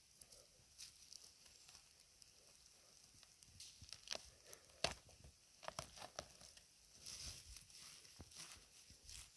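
A porcini mushroom being gripped and pulled by hand out of dry conifer-needle litter and soil: faint crackling and rustling of needles and twigs, with soft tearing and scattered sharp clicks, busier from about four seconds in.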